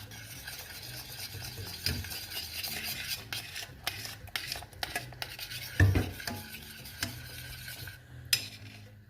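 A spoon stirring thick homemade ketchup in a pot as the cornstarch sets it, with a few knocks of the spoon against the pan.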